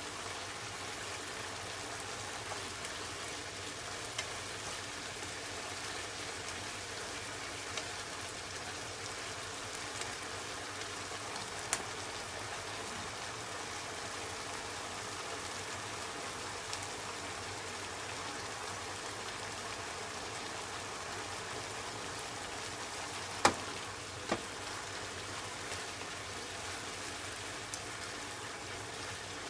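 Pork and daikon peel sizzling steadily in a pan, with a few sharp knocks scattered through, two loud ones close together near the end.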